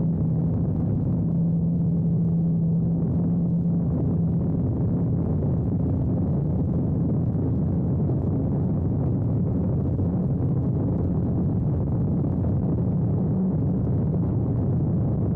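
Desert Aircraft DA-100 twin-cylinder two-stroke gas engine of a giant-scale RC biplane, running steadily as heard from a camera mounted in the model's cockpit. A clear, even note for the first four seconds or so turns rougher and less even.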